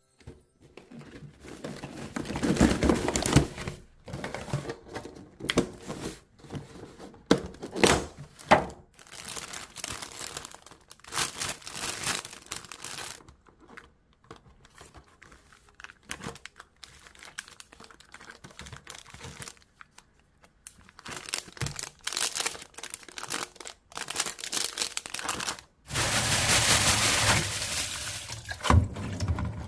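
Packaging crinkling and being torn open in irregular bursts, with small knocks of handling. About 26 seconds in, a steady rush starts: a kitchen tap running into the sink.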